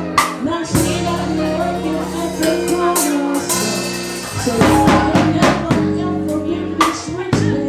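Live band playing: held chords over a bass line, with drum kit hits and cymbal crashes.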